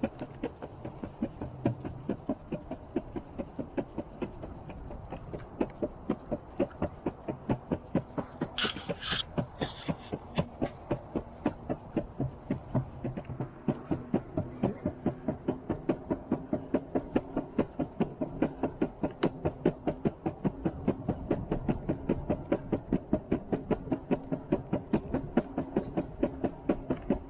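Off-road skateboard rolling fast on a concrete sidewalk: a steady rumble from the wheels with an even, rapid clacking, about four a second, as they run over the joints between the slabs. A brief, brighter scrape rises over it about nine seconds in.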